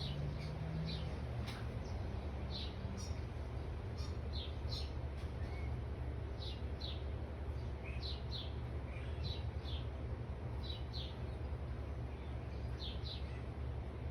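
Songbird chirping: short, high, falling chirps, often in quick pairs, repeating about once a second, over a steady low rumble.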